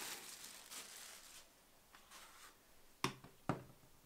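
Clear plastic bag crinkling and rustling as it is pulled off a handheld vacuum cleaner. Near the end come two sharp knocks about half a second apart: the plastic vacuum parts being set down on a wooden desk.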